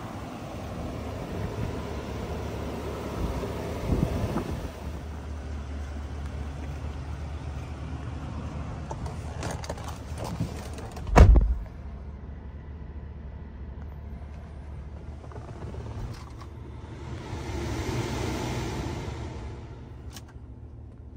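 Low steady rumble with wind noise on the microphone around a Chevrolet Silverado 1500 pickup. About eleven seconds in comes a single heavy thump of the truck's door shutting, after which a quieter low rumble carries on in the cab. An airy hiss swells and fades near the end.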